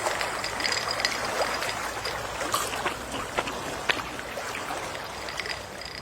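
Gentle sea waves lapping on a shore: a steady watery wash with scattered small crackles and ticks.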